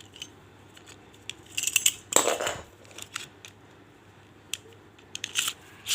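Hard plastic Beyblade parts clicking and scraping as they are handled and forced together, with a louder scrape about two seconds in.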